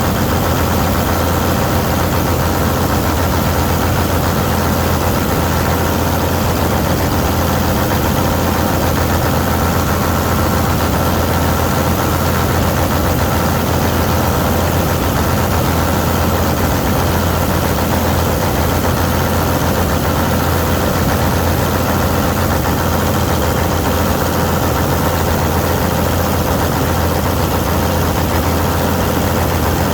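Old Polish Vistula KZB-3B combine harvester running steadily while mowing grain: an even, unbroken engine drone with a strong low hum and machinery noise over it.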